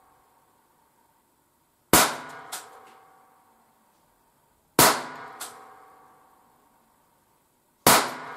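Three shots from an ALFA 461 4 mm Flobert revolver, about three seconds apart. Each sharp crack leaves a metallic ring that fades over about a second, with a fainter click about half a second after it.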